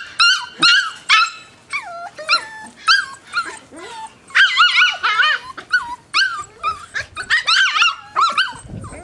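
Welsh terrier puppies yipping and whining as they play, a quick run of short high-pitched calls that bend in pitch, with a brief lull about four seconds in.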